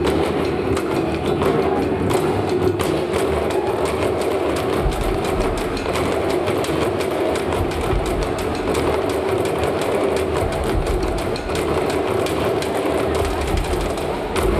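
Rapid, continuous percussive clatter on a plastic wheelie bin and the objects on its lid, a steady dense rattle of strokes.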